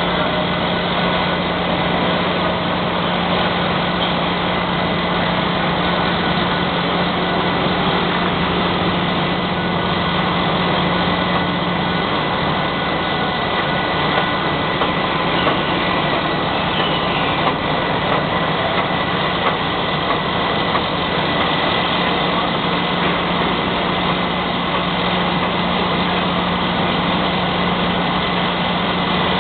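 Mobile crane's diesel engine running steadily during a steel column lift, a continuous engine hum with its low tone easing for a few seconds near the middle.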